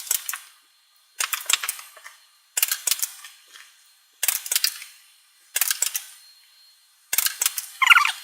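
Nerf pistol blaster being primed and fired over and over, six sharp bursts of clicks and snaps about every second and a half, each dying away quickly.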